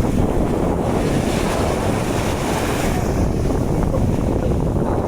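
Wind buffeting the microphone over the wash of sea surf on a beach, a steady rough noise heavy in the low end.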